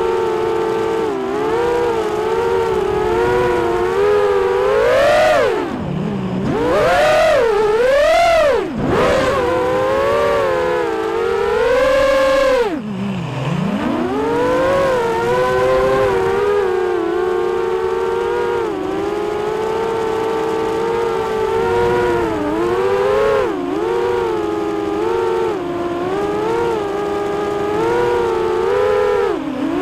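QAV210 FPV racing quadcopter's four Multistar Elite 2306 2150kv brushless motors spinning Dalprop 5045 propellers on 4S, heard from the camera on its frame: a buzzing whine that swoops up and down in pitch with the throttle. It drops sharply about six, nine and thirteen seconds in as the throttle is chopped, then climbs again, with smaller dips later.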